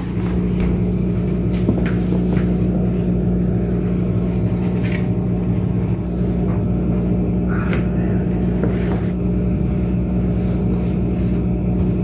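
A steady machine hum over a low rumble, with a few light rustles and knocks as clothes are handled and loaded into a front-loading washer.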